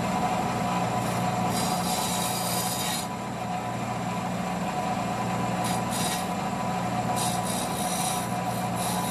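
Bench grinder running with a steady motor hum, while the burred cut end of a steel fuel line is pressed against the wheel and turned, giving a hissing grind that comes and goes: about a second and a half in, briefly around six seconds, and again from about seven seconds.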